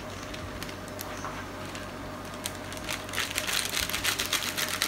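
A large pot of thick tomato-based qeema sauce simmering on a gas burner over a steady kitchen hum. From about three seconds in come rapid crackling pops.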